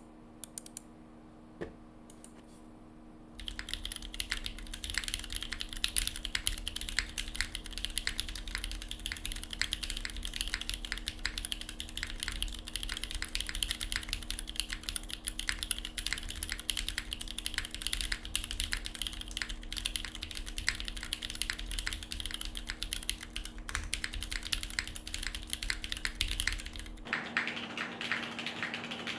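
Fast, continuous typing on the alpha keys of a gasket-mounted SingaKBD Kohaku r2 mechanical keyboard: linear switches (Cherry MX Hyperglide Black housings with Kailh Razer Orange stems) in a full aluminium plate without foam, under GMK Panels keycaps. The typing starts a few seconds in, and near the end the sound changes character as the recording switches to a different microphone.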